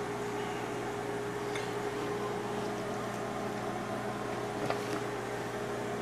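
Steady machine hum with a constant tone, and a few light clicks as dry rotini pasta is handled into a bowl.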